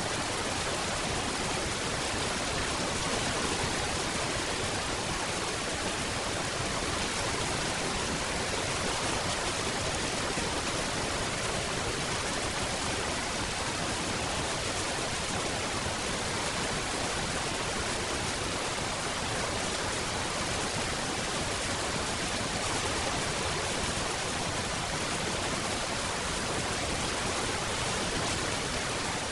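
Steady, dense rain falling, an even hiss with no single drops standing out.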